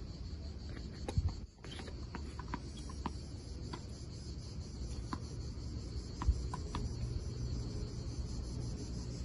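Steady, high insect drone, with a low rumble underneath and scattered faint clicks. The sound briefly cuts out about a second and a half in, and a short low thump comes about six seconds in.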